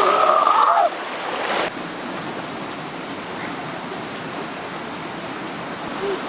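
Splashing water with a child's brief shout in the first second or so, then a steady rush of flowing river water over rocks.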